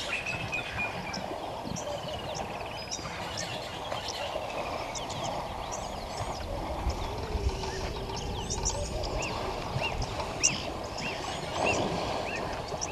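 Many short chirping bird calls at a waterhole over a steady rushing noise, with a brief louder rush near the end.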